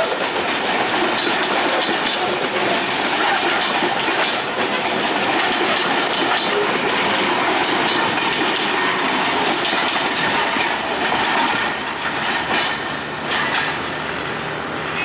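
Covered freight wagons and a brake van rolling past close by: steel wheels clattering over the rail joints with a steady rumble. The sound eases a little near the end as the last car goes by.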